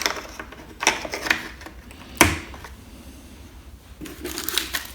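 Small metal timing tools being handled and set down: a few sharp separate clicks and knocks, the loudest a little over two seconds in, with a light rustle near the end.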